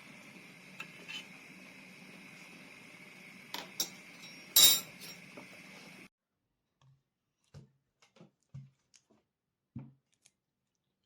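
Dishes and utensils clinking: several light clinks, then one loud clink about four and a half seconds in. The background hiss cuts out about six seconds in, and a few soft knocks follow.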